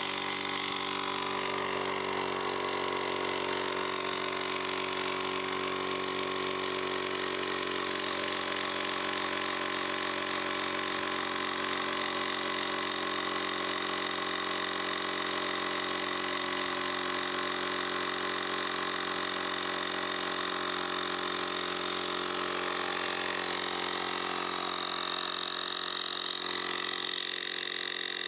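Cordless portable tire inflator's small electric air compressor running steadily, pumping a motorcycle tire up toward its preset 29 PSI. The tone shifts slightly about three quarters of the way through as the pressure builds.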